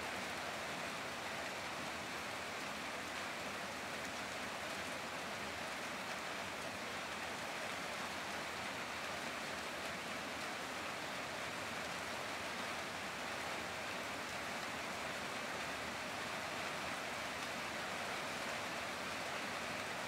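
Heavy rain falling steadily, an even hiss that does not let up.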